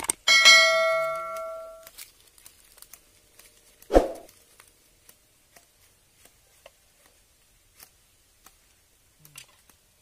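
A machete striking a charred bamboo cooking tube to split it open: the first blow leaves the blade ringing with a clear metallic tone that fades over about a second and a half, and a second sharp knock comes about four seconds in, followed by faint clicks and cracks as the tube is worked apart.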